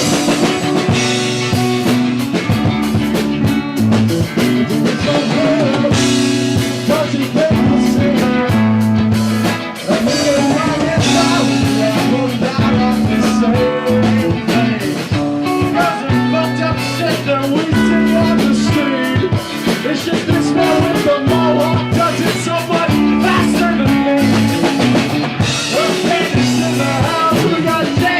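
A band jamming an improvised groove: drum kit, bass and electric guitar, with a voice singing over it.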